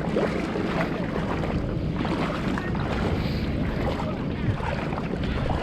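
Steady low rumble of a boat out on open water, with wind buffeting the microphone.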